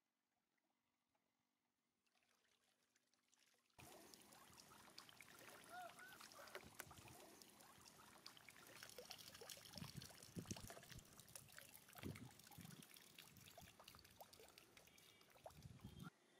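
About four seconds in, water suddenly starts pouring and trickling out of a plastic bottle fish trap as it is lifted out of a pond, with many small splashes and clicks, and it stops abruptly shortly before the end. Before the pour there is near silence.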